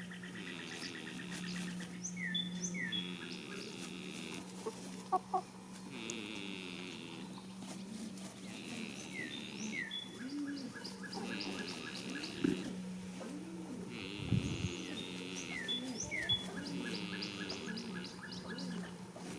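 A songbird singing the same phrase of chirps, down-slurred notes and trills three times, over a steady low hum. Underneath, a goat snores as it sleeps.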